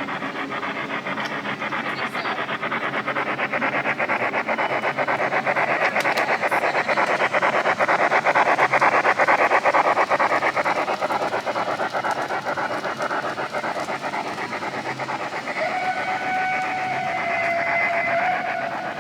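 Model railway layout's train sound effect: a rapid chuffing that grows louder toward the middle and then eases, with a train whistle held for about three seconds near the end.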